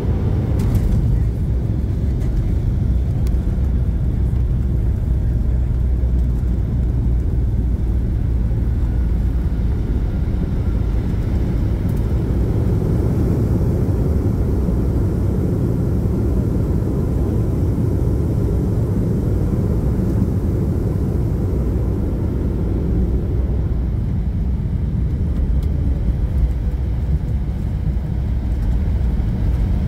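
Steady low rumble inside an airliner cabin as the plane rolls along the runway after touchdown.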